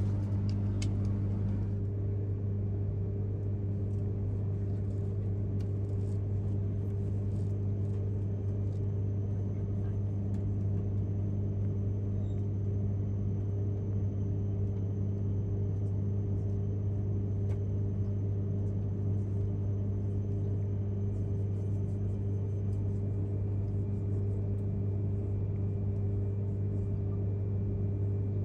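Steady low hum inside an E3 series shinkansen carriage, with a faint thin high whine from about eight seconds in until past the middle.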